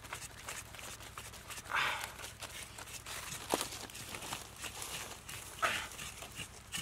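A knife blade scraping the hair off a whole pig's hide, the step before roasting, in quick repeated strokes, with a couple of louder rasping strokes and one sharp click.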